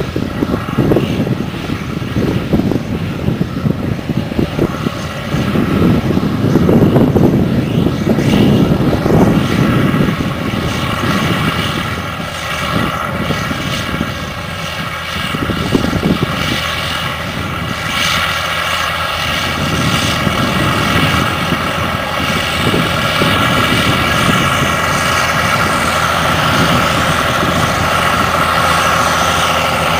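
Large rubber-tracked tractor's diesel engine running steadily as it pulls a Seedmaster seed drill, with a steady drone that grows louder through the second half as it comes closer. Wind gusts on the microphone for roughly the first ten seconds.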